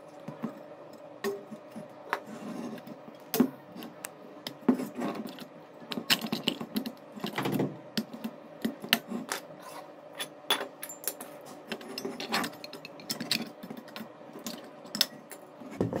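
Irregular metallic clicks, taps and light rattles of steel pliers against a microwave-oven magnetron's sheet-steel filter box and filament choke coils as the coils are worked loose by hand.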